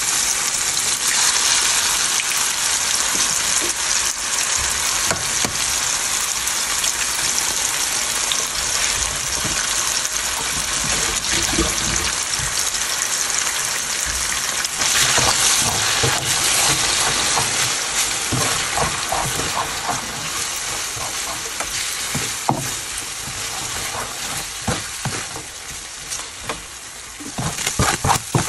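Chicken strips sizzling in hot oil in a nonstick frying pan, a steady hiss that grows louder about halfway through, when two eggs are in the pan. Near the end a spatula scrapes and stirs through the eggs and chicken.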